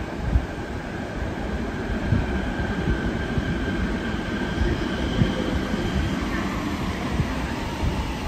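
Hitachi escalator running under a descending rider: a steady low rumble from the moving steps and drive with small irregular knocks, and a faint high whine above it.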